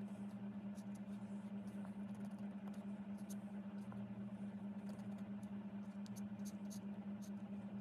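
A steady low hum, with faint short clicks scattered over it, more of them in the second half.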